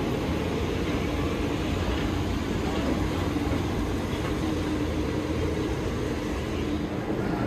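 Walt Disney World monorail train running, a steady rumble with a low hum.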